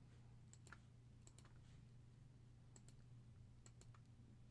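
Near silence with a few faint computer mouse clicks, some in quick pairs, over a low steady hum.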